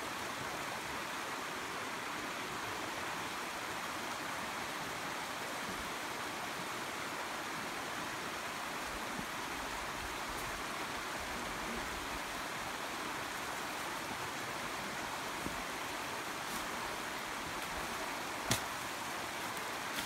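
Steady rushing of a stream running over rocks, with one sharp snap near the end.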